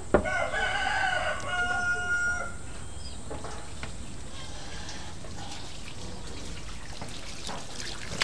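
A sharp knock, then a rooster crowing once, a call of about two seconds that ends on a held, steady note.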